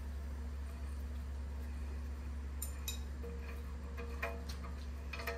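Hand tap being turned with a T-handle wrench to cut threads in a steel bracket held in a bench vise. A few light metallic clicks and ticks come in the second half, over a steady low hum.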